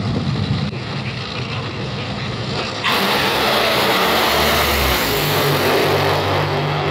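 Top Fuel dragsters' supercharged, nitromethane-burning V8 engines on a run: a loud rumble, then about three seconds in a sudden jump to a much louder, harsher sound as the cars pass, easing off near the end.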